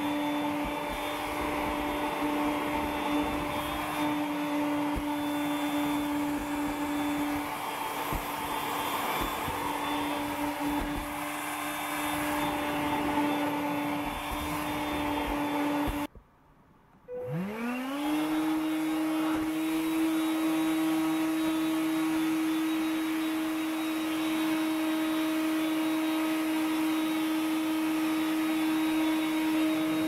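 Makita CL108FD 10.8 V cordless stick vacuum running steadily with a motor whine and rushing air. About halfway through it goes silent for about a second, then the motor starts again, its whine rising quickly to a steady pitch.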